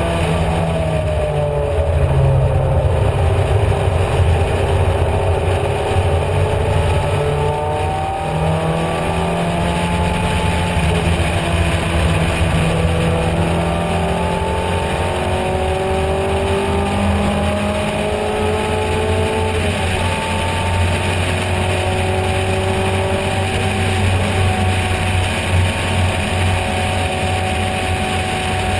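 Racing car engine heard from the open cockpit at speed, its pitch climbing slowly under acceleration, dropping sharply at a gear change about 8 seconds in, then climbing again and holding steady at high revs for the last third. Steady wind rush over the open cockpit runs underneath.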